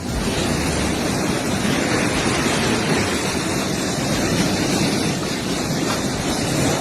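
A loud, steady rushing noise with no distinct strokes or tones, starting and cutting off abruptly.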